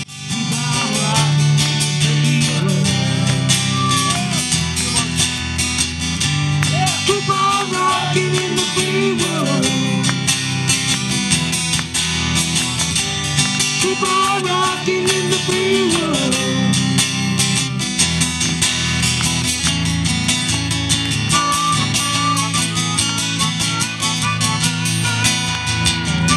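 Live country-rock band playing a song on acoustic and electric guitars over a drum kit.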